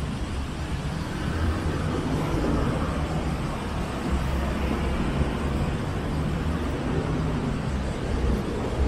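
Road traffic on a busy city street: cars and other vehicles passing in a steady low rumble.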